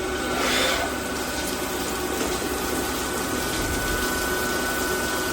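Coolant pump running on a CNC lathe, coolant splashing and gushing steadily, with a steady machine whine over it.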